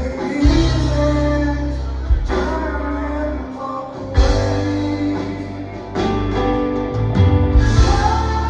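Rock band playing live with a lead singer, bass and drums, with heavy accented drum hits roughly every two seconds.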